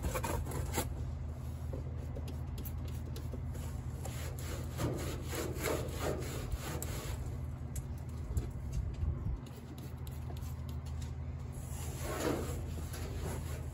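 Cloth rag rubbing and wiping over the bare sanded steel of a car hood's underside, in two spells of strokes, about five seconds in and near the end, with light clicks between. A steady low hum runs underneath.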